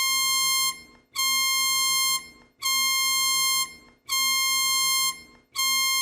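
Electronic alarm tone from a fictional emergency alert: a buzzy, high-pitched beep under a second long, repeating about every second and a half, five times.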